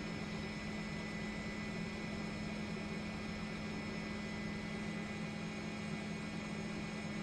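Steady aircraft engine drone: a low hum with thin, high steady whines above it.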